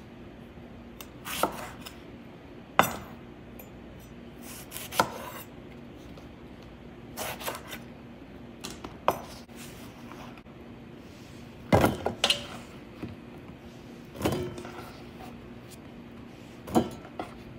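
A kitchen knife trimming and cutting up garden eggs (white eggplants) on a cutting board: about a dozen separate, irregularly spaced knocks and clinks, with pieces set into a pot.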